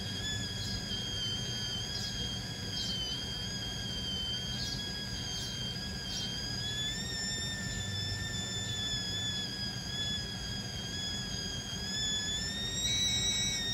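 Meat frying in a pan, with faint short crackles, under a steady high whistling tone that wavers slightly in pitch and a low hum.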